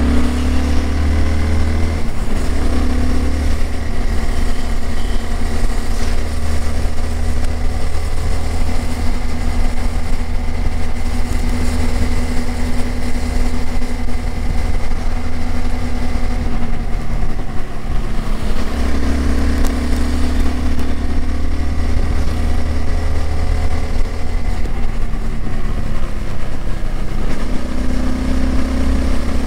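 Honda CBR250R's single-cylinder four-stroke engine through its stock exhaust, running under way. Its note steps up and down in pitch and loudness several times as the throttle opens and closes, with louder stretches near the start, from about 19 to 24 seconds, and again near the end.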